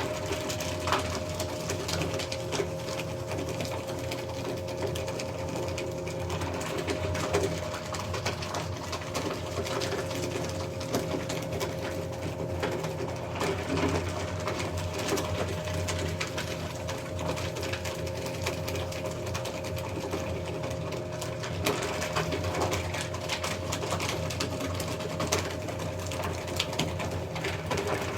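Electric document shredder running steadily, its motor humming while it shreds paper, with constant irregular crackling through the hum.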